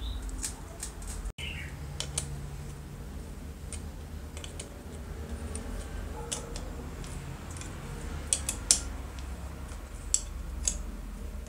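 Scattered light clicks and taps of small metal parts and hand tools being handled, irregular and louder in a few sharp knocks after about 8 seconds, over a low steady hum. A short bird chirp comes about a second and a half in.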